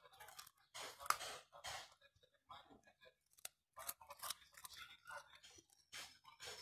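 A puppy crunching a piece of raw carrot, with short, irregular crunches as her teeth bite through it.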